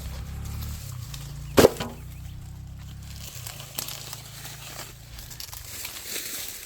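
Dry corn plants rustling and crackling as ears are plucked by hand, with one loud sharp snap about one and a half seconds in. A low steady drone runs underneath and drops away about three seconds in.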